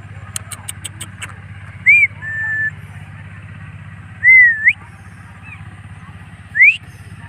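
Indian ringneck parrot giving short loud whistles: a rise-and-fall note about two seconds in, a held note just after, a curving whistle a little past four seconds and a quick rising whistle near the end. Half a second in there is a quick run of about five sharp clicks, and a steady low hum runs underneath.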